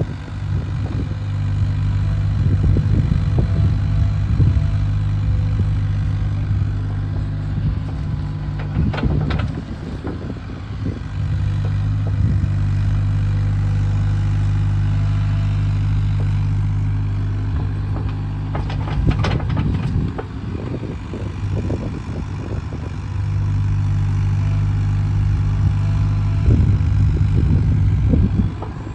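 Hyundai HX35Az mini-excavator running: a steady diesel engine note that swells and settles in long stretches as the machine works, with a few knocks of metal about a third of the way in, two-thirds of the way in and near the end.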